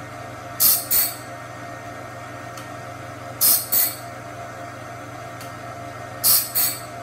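Cat Claw band saw blade sharpener running: a steady motor hum, broken about every three seconds by a pair of short, loud grinding sounds as the wheel works a tooth of the band blade.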